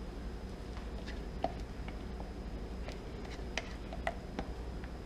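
A few faint, scattered light clicks and taps of small utensils against containers over a steady low hum.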